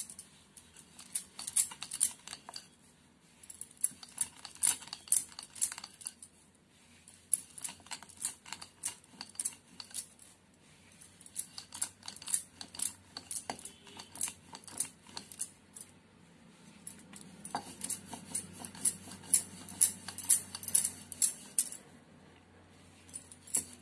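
Bangles on the wrist clinking in quick jangling bursts, with short pauses, as a wooden rolling pin is worked back and forth over a paratha on a stone rolling board. The pin's soft low rumble runs underneath and is strongest late on.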